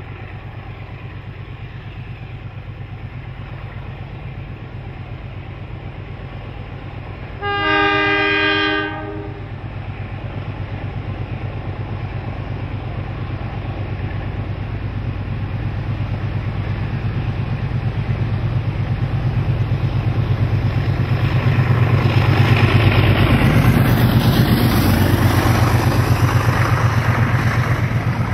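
Two Alco streamliner diesel locomotives running as they approach, with a steady low throb. One horn blast of several tones lasts about a second and a half, a quarter of the way in. The engine sound grows louder as the locomotives pass close by, and the carriages rumble over the rails near the end.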